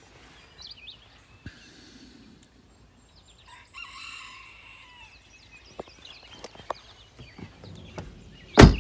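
A rooster crows once, a call of about a second starting around three and a half seconds in, with small birds chirping around it. Near the end there is a single loud thump, the SUV's rear door being shut.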